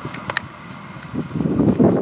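Uerdinger railbus running along the track, its diesel and wheel noise swelling louder in the second half, with a couple of sharp clicks about a third of a second in.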